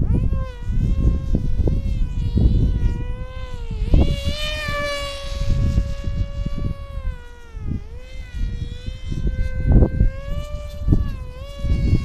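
Electric motor and propeller of a small flying-wing model aircraft buzzing in flight, its pitch dipping and rising a few times. Strong wind gusts buffet the microphone with a heavy rumble throughout.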